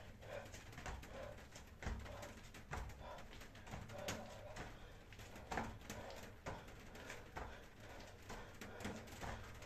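Bare feet landing on a thin exercise mat during jump lunges, a short thud about once a second, with softer shuffling and breathing sounds in between.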